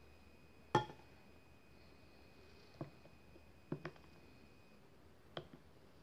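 Metal clinking against a ceramic mug as a steel pan and spoon are handled at it: four sharp clinks with a short ring, the loudest under a second in, spaced about a second or more apart.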